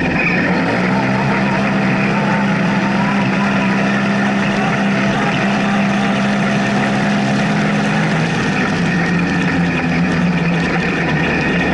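Polaris RZR side-by-side's engine running hard as the car accelerates along a dirt track, heard from inside the open cockpit at a steady, high pitch. The engine note shifts lower about eight seconds in.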